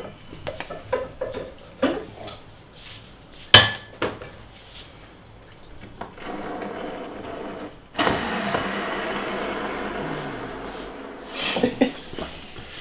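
Kitchen handling sounds: light clicks and knocks of a glass bottle and utensils, with one sharp knock about three and a half seconds in. A steady hiss starts about six seconds in, grows louder two seconds later and stops about three seconds after that, followed by a clatter of dishes near the end.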